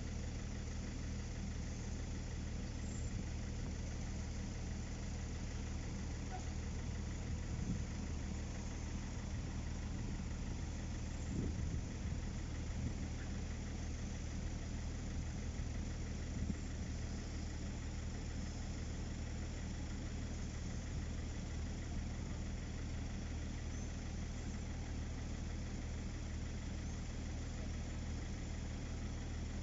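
An engine idling steadily, a low even hum, with a few faint knocks about 8, 12 and 16 seconds in.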